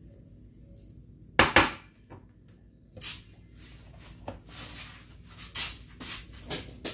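A plate set down on a glass tabletop with a sharp double knock, followed by several lighter knocks and clatters as a plastic food container is put down and handled beside it.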